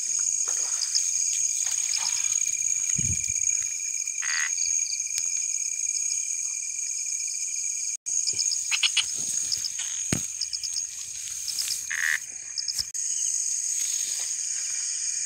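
Night chorus of crickets and other insects, a steady high trill, with repeated short frog calls over it. A few knocks and rustles come from brushing through the grass.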